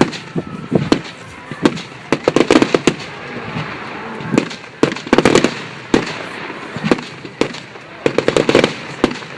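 Firework display: sharp bangs of shells bursting every second or so, with clusters of rapid crackling bangs about two, five and eight seconds in.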